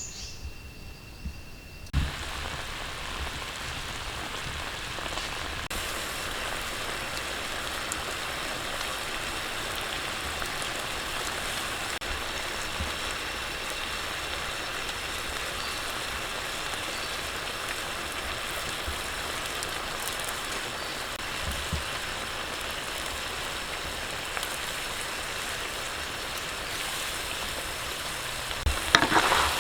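Food sizzling steadily in a hot pan, a continuous even hiss that starts suddenly about two seconds in.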